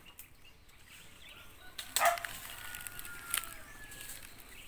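Quiet outdoor ambience with one short, sharp noise about two seconds in, followed by faint thin whistling calls and a brief click.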